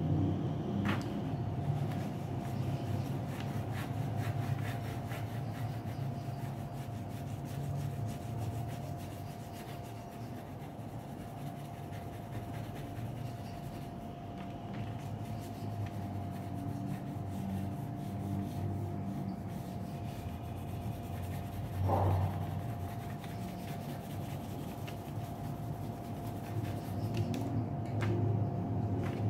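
Pencil rubbing and scratching across drawing paper as lines and shading are laid down, over a steady background hum, with one knock about three-quarters of the way through.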